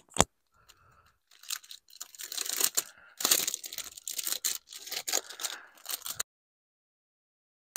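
Packaging being torn open by hand: a sharp click just after the start, then a few seconds of irregular ripping and crinkling that stops abruptly about six seconds in.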